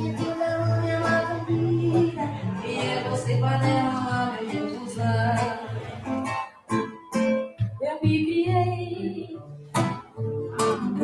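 Live forró song sung to a strummed acoustic guitar.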